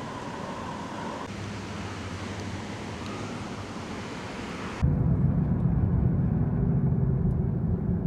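Steady background hiss, then an abrupt cut about five seconds in to a louder, muffled low rumble.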